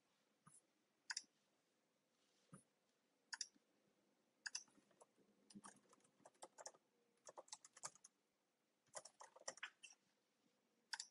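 Faint typing on a computer keyboard: a few scattered key clicks at first, then quicker runs of keystrokes through the middle, with a last short pair near the end.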